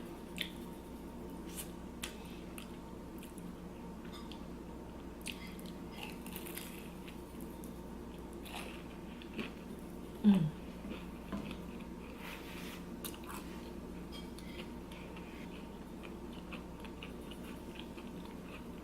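Close-up mouth sounds of someone eating a crispy fried empanada: scattered crunches and wet chewing clicks. A brief low vocal sound with a falling pitch comes about halfway through.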